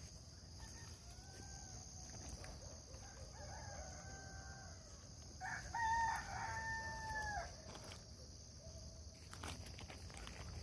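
Roosters crowing: fainter crows in the first half, then a louder, long crow starting about five and a half seconds in and lasting about two seconds.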